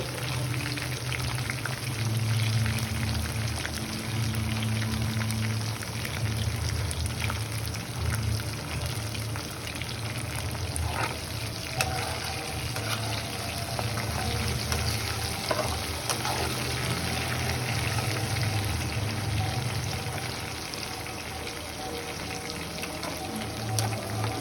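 Chicken pakodi deep-frying in hot oil, a steady sizzle with dense crackling, over a low hum.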